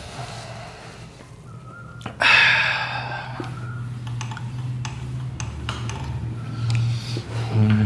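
Cloth duster rubbed back and forth over a whiteboard to wipe it clean: a dry scrubbing that starts suddenly about two seconds in, with scattered small knocks.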